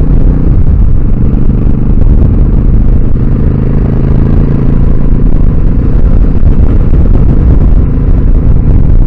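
Heavy wind buffeting the microphone of a moving motorcycle, a loud, steady rumble with the engine running underneath.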